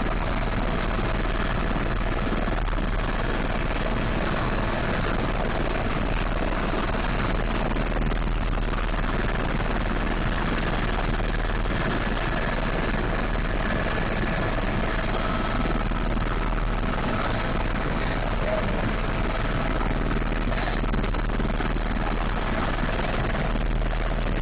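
Tour helicopter in level flight, heard from aboard: a steady, unchanging drone of engine and rotor noise with a few faint steady whining tones over it.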